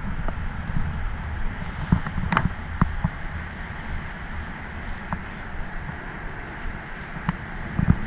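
Wind buffeting the microphone as a rumbling low rush, with a few sharp clicks and taps from handling the fishing rod and tackle, the loudest about two and a half seconds in.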